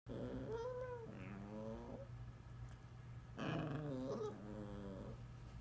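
A papillon 'talking': two spells of drawn-out vocal sounds that waver up and down in pitch, each in two parts, one near the start and one about halfway through.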